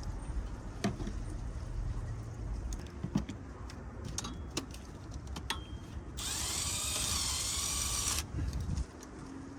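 A few light metal clinks of tools, then a cordless power tool runs for about two seconds, spinning a bolt out of the engine, its pitch wavering as the load changes.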